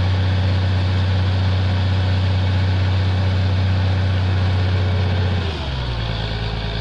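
Borewell drilling rig's engine and air compressor running with a steady low drone and a rushing hiss as compressed air blows a tall column of water out of the borehole. About five and a half seconds in, the engine note drops and the sound gets a little quieter.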